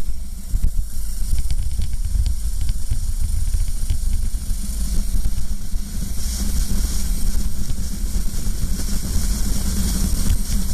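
Racing kart's engine running, heard from the kart's own onboard camera as a low, rough rumble under a steady hiss of wind on the microphone. About six seconds in, the kart accelerates out of a slow corner and the hiss grows brighter.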